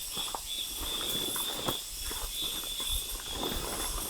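Steady high-pitched insect chirring, with a few light knocks scattered through it.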